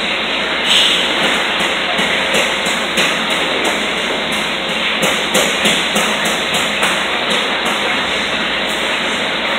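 Loud, steady hiss and rumble of metal-shop work, with irregular metallic taps and knocks throughout.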